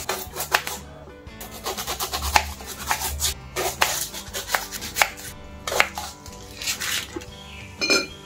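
Small knife cutting red onions on a wooden chopping board: irregular knocks of the blade striking the board. Near the end, a brief metallic clink from a small steel bowl.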